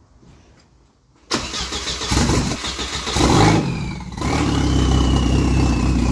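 Audi A4 B6's 1.8T four-cylinder engine, fitted with a twin-turbo setup, cranks and fires about a second in with a sudden loud start. It dips briefly near four seconds, then settles into a steady idle with a faint high whine that falls slowly in pitch.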